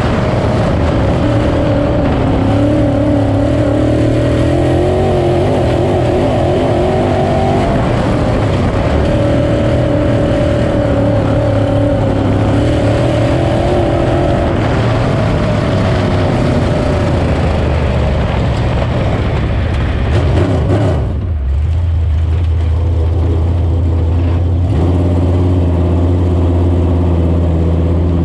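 Onboard sound of a 602 Sportsman dirt car's crate V8 under racing throttle, heard from inside the cockpit, its note shifting up and down with the throttle through the laps. About three quarters of the way in the racing noise falls away and the engine settles to a low, steady note as the car slows off the track.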